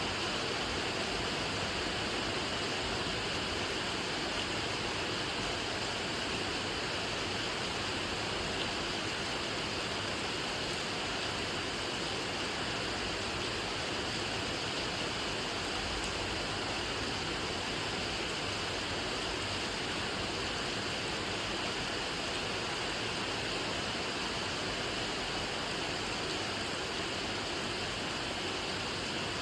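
Steady rain falling: an even, unbroken hiss with no single drops standing out and no change in strength.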